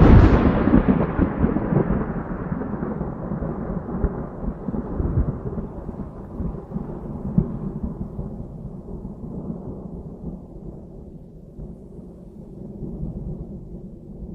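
Thunder: a loud clap at the start, then a long rolling rumble that slowly fades and grows duller, with a few sharper cracks along the way.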